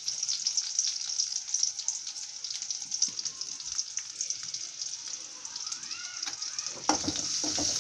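Shallots and spices frying in sesame oil in a kadai, a steady sizzle with many small crackles. Near the end there is a knock, and the sizzling grows louder after it.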